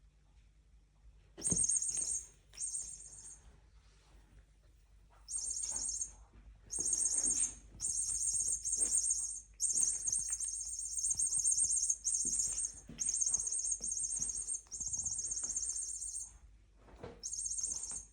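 Electronic cat toy playing bird chirps in repeated spells of half a second to a couple of seconds, with faint knocks between them.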